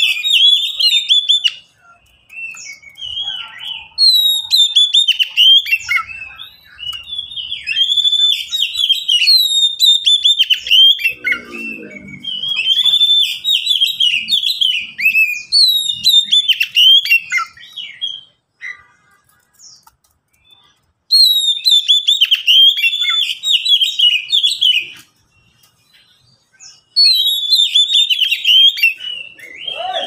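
Oriental magpie-robin (kacer) singing in runs of quick, whistled phrases that slide up and down in pitch. The song breaks off twice for a few seconds in the second half.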